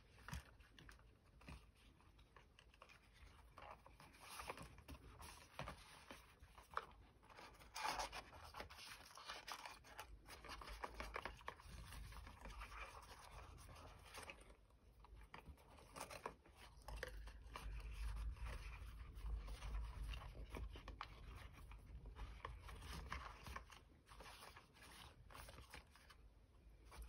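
Faint rustling and scraping of twine and paper as twine is wound around a small paper gift box and tied, with occasional small taps.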